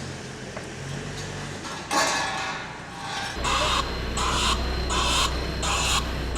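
Street background with a short noisy surge about two seconds in. From past halfway, a steady low hum sets in, and an electronic signal sounds in short, even buzzing pulses, about one and a half a second.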